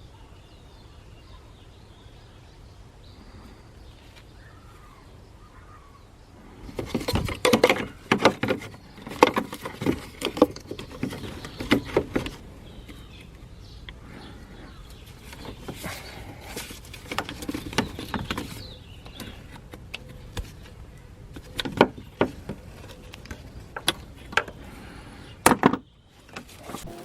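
Hand tools clicking and clanking irregularly against metal parts, beginning about six seconds in, after a quiet stretch, and going on in short clusters until near the end.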